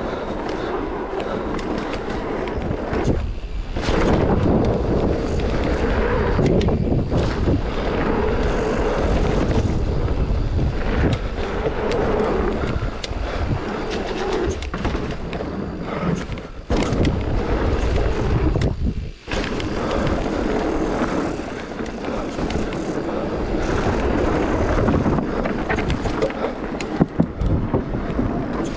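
Bike rolling fast down a rough, muddy trail: steady rushing wind on the camera microphone with the rumble and rattle of tyres and frame over the ground, easing off briefly twice.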